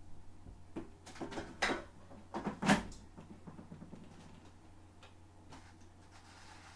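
Several sharp knocks and clunks from handling and setting a manual air fryer, bunched between about one and three seconds in, with the loudest near the end of the bunch; then only a faint, even room hum.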